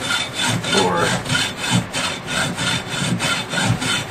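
Hand saw cutting through number 6 solid copper wire, with quick, even back-and-forth strokes at about five a second.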